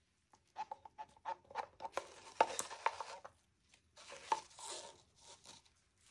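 Wooden craft stick scraping and tapping against a plastic cup as thick resin paint is scraped out of it, in a run of light clicks and scrapes.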